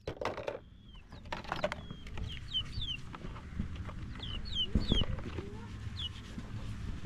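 Chickens calling outdoors: repeated short, high peeps that fall in pitch, with a few knocks near the start and about five seconds in over a low rumbling background.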